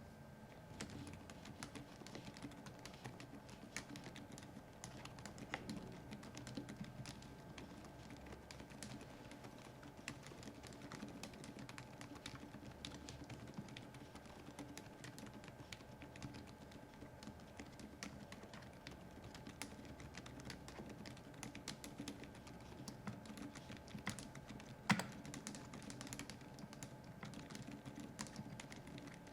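Typing on a Keychron K10 Max mechanical keyboard with Keychron Silent Brown tactile switches: a steady run of quiet keystrokes, with one louder key hit about 25 seconds in.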